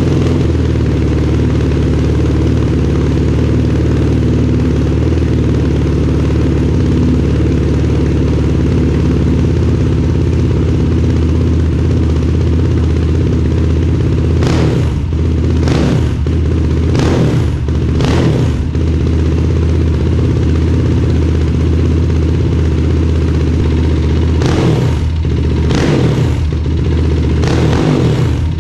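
Yamaha YFZ450R's single-cylinder four-stroke engine idling steadily, its idle set by a manual idle adjuster fitted in place of a failing idle air control valve. About halfway through, and again near the end, it is given a short run of quick throttle blips.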